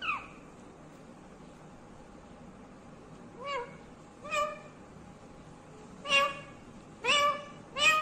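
Rose-ringed parakeet making short calls, each rising and falling in pitch: one at the start, two softer calls around the middle, then a run of louder calls in the last two seconds.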